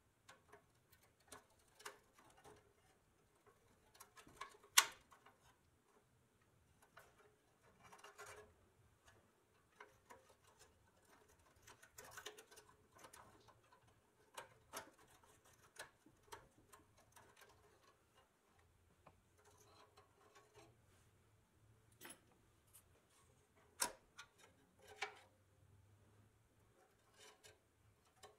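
Faint, irregular clicks, taps and short scrapes of a steel pick tool prying at the rusty bent-over tabs of a pressed-steel toy fire truck's ladder-rack brackets, with a sharper metal click about five seconds in and a few more near the end.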